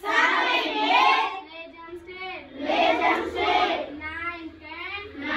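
Children singing an action song together, in sung phrases broken by short pauses.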